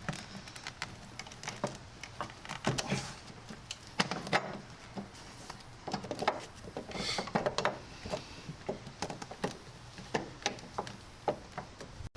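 Metal parts clinking and knocking irregularly as a strut tower bar mounting plate is worked into place over the strut tower studs.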